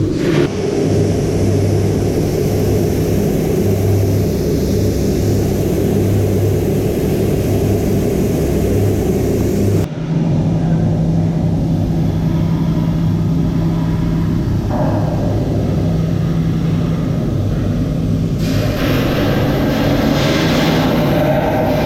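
Steady machine running with a low hum under a broad hiss, typical of welding equipment at work. The sound changes abruptly about ten seconds in.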